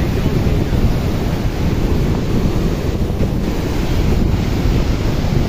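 Strong wind buffeting the phone's microphone: a loud, fluttering low rumble with rushing noise over it, with no other distinct sounds.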